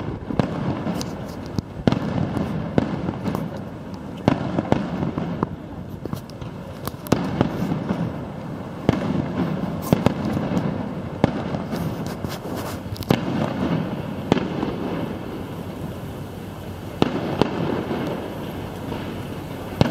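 Fireworks display: aerial shells bursting in an irregular string of sharp bangs, some close together, over a steady background rush.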